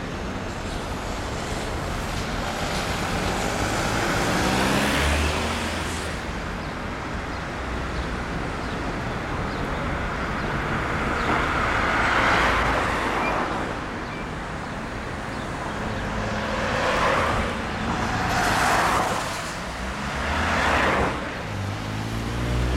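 City road traffic: several cars pass one after another, each swelling and fading, over a steady background hum of the street.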